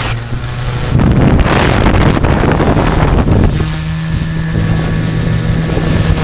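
Brushless motors and 13-inch carbon propellers of a multirotor drone running with a steady hum, heard from the drone's own onboard camera. Wind buffets the microphone loudly from about one second in until about three and a half seconds in.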